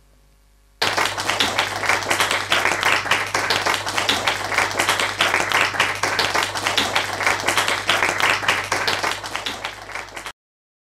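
Audience applauding: dense, steady clapping that starts suddenly about a second in and cuts off abruptly near the end.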